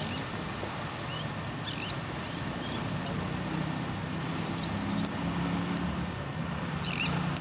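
Steady wind and sea noise with a low engine drone underneath, and several short, high bird chirps scattered through it, a cluster near the end.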